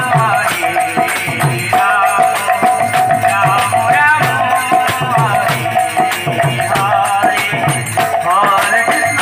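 Live kirtan music: a wavering melody over a steady held drone, with a hand drum beating about twice a second and small shaken or struck percussion.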